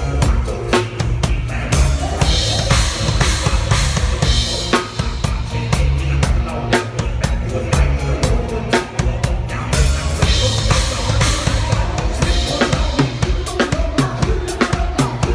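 Drum kit playing a busy, steady beat along with a pop song, the kick, snare and cymbals hitting in quick succession over the song's bass line.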